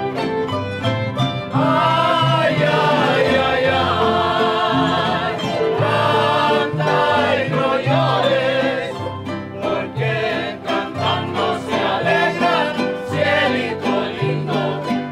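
Latin folk string band playing with guitars, violins and a harp over a plucked bass line, with voices singing a melody that comes in about a second and a half in.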